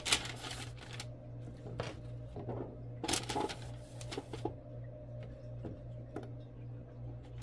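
Vegetables being tipped into and moved around a pan, rustling and clattering in two spells, one at the start and one about three seconds in, with scattered light clicks. A steady low hum runs underneath.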